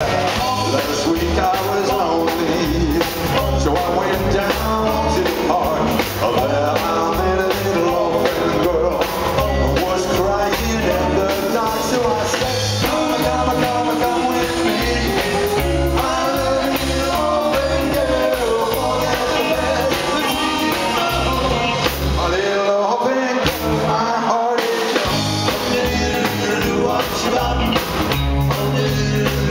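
Live rock and roll band playing: electric guitar, upright double bass and drums, with a man singing. About 22 seconds in, the bass drops away for a couple of seconds in a short break, then the full band comes back in.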